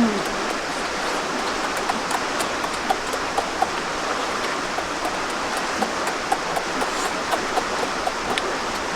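A steady rushing sound of running water, with scattered faint clicks.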